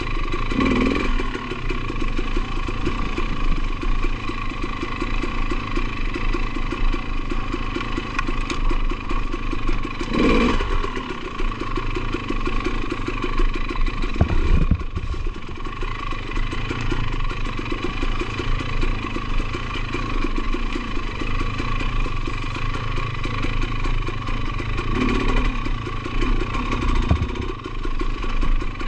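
2020 KTM 300 XC-W TPI's single-cylinder two-stroke engine running steadily, with three short revs: about half a second in, around ten seconds in and around twenty-five seconds in.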